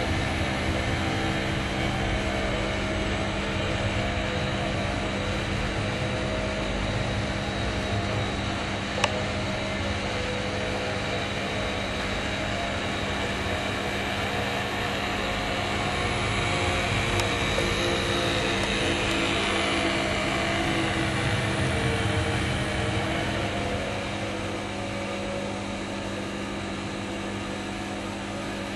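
Steady whirring hum of a 1960s Scalecraft model boat's small motor running as the boat cruises. There is a single sharp click about nine seconds in, and the hum eases slightly near the end.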